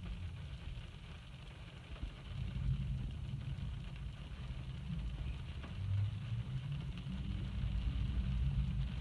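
Rain falling steadily, under a low rumble that swells about two and a half seconds in and again near the end.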